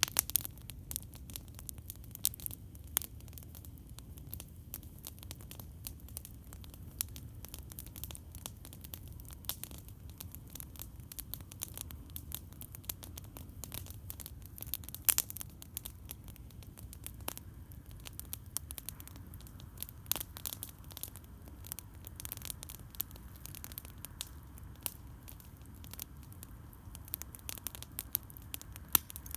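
Campfire crackling: many sharp pops and snaps at irregular intervals, a few much louder than the rest, over a low steady rumble.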